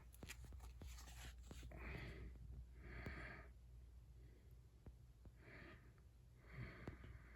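Near silence with a few faint soft swishes and small clicks from crisp paper bills being handled.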